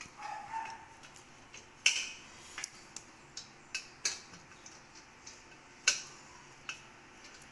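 Screws being tightened by hand on a stainless steel dish rack frame: irregular light metal clicks and ticks, with three louder clinks about two, four and six seconds in. A brief squeak comes near the start.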